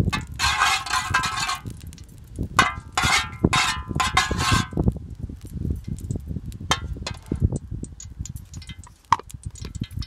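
A metal spoon scraping and clinking against a large metal pan as it spreads melted fat around. There are two longer scraping runs in the first five seconds and a couple of short scrapes later, over a low rumble.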